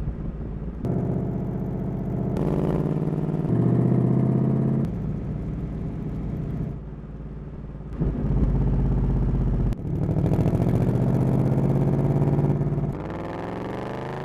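Ford Mustang Mach 1 V8 engines running and accelerating on a race track, in short clips that change abruptly in pitch and loudness from shot to shot. The engine note rises near the end.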